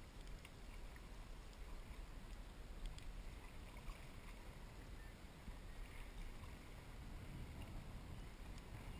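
Faint water sounds of a stand-up paddleboard being paddled across a lake: paddle strokes and water lapping at the board, over a low rumble, with a few small clicks.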